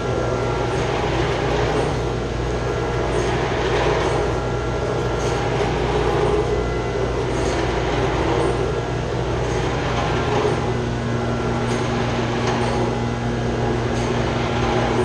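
Chilled-water pump on a chiller running loudly, a steady mechanical drone with a low hum and a noisy surge that swells about once a second. This is the noise and shaking the pump was called in for.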